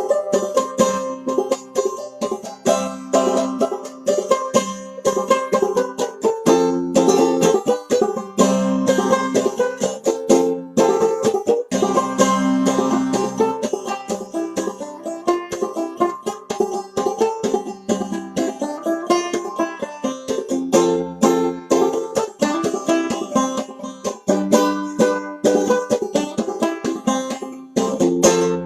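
Solo banjo played clawhammer style, an open-back Bart Reiter Standard: a steady, unbroken run of quick plucked notes in an old-time tune.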